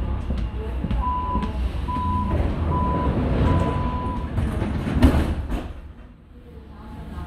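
Door-closing warning beeps of an Athens Metro Line 1 train: four short beeps at one pitch, the last held longer, over the low hum of the stopped train. About five seconds in, a loud thud as the doors shut.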